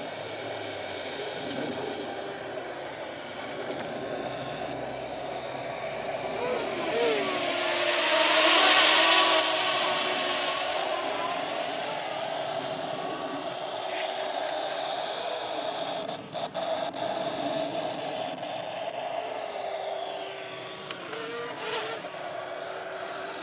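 Small quadcopter's motors and propellers buzzing in flight, the pitch sliding up and down with the throttle. It swells to its loudest about a third of the way in, then eases off, with a few brief dips past the middle.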